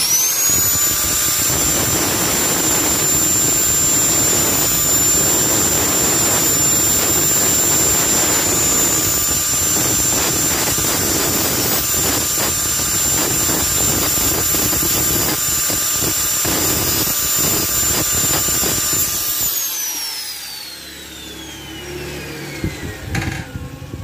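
Electric angle grinder spinning up to a high steady whine and grinding steel on a motorcycle engine case, throwing sparks. It winds down with a falling whine about 19 seconds in, followed by a few light metal clinks near the end.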